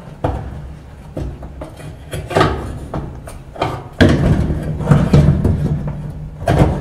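Replacement dryer drive motor being worked into its sheet-metal mounting bracket: irregular metal scrapes, clunks and rattles as it is pushed and turned to seat in the bracket's notches, loudest in a burst about four seconds in.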